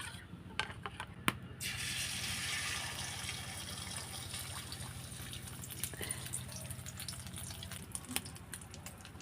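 Beaten egg sizzling in hot oil in a karahi. A few light clicks come first, then the sizzle starts suddenly about a second and a half in and slowly eases off.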